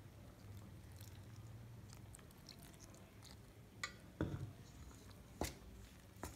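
Quiet handling sounds, then four sharp clicks and knocks in the second half: a metal spoon striking a steel mixing bowl as water is stirred into flour for dough.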